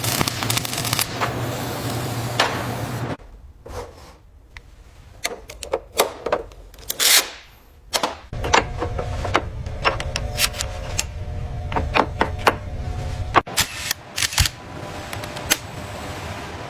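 Mechanical clicks, knocks and clanks of tools on metal over a steady machinery hum. The hum drops out about three seconds in, a short hiss swells up around seven seconds, and the hum comes back at about eight seconds with more scattered clicks.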